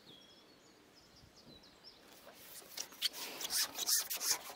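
Small birds chirping faintly. From about two seconds in, a quick run of rustling, scraping and knocking as a long fishing pole is handled and unshipped to land a hooked fish.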